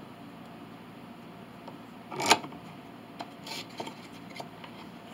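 Quiet bench work: a short rub or knock about two seconds in, then a few faint taps as glued wooden pieces are handled, over steady low room noise.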